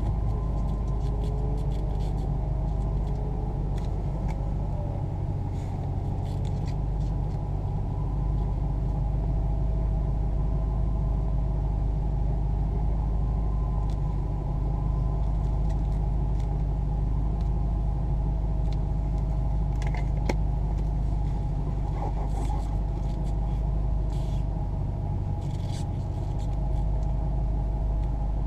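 A motor vehicle's engine running steadily with a low rumble and an even pitch, with a few faint ticks past the middle.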